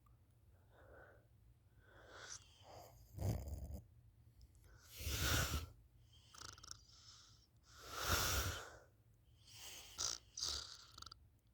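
A sleeping person snoring: loud noisy breaths about every two to three seconds, with fainter breaths between them.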